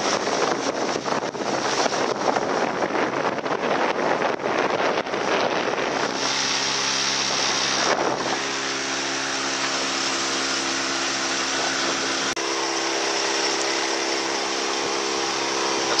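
A boat's engine running steadily under way, with wind buffeting the microphone and water rushing past the hull. The buffeting is heavy for the first half and eases about eight seconds in, leaving the steady engine hum and wind noise.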